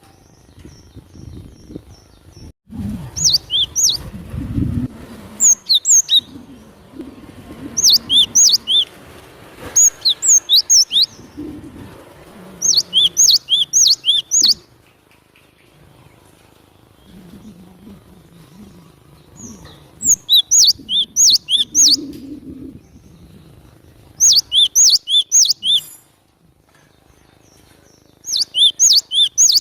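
Cinereous tit (glatik batu) singing in bouts of quick, high, sharp repeated notes. Each bout lasts one to two seconds, with pauses of a few seconds between.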